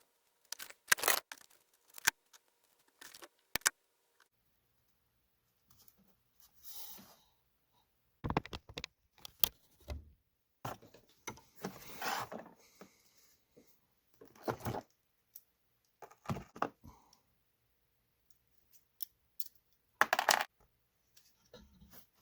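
Irregular clicks, clinks and rattles of small hard objects being handled, coming in separate bursts with quiet gaps between.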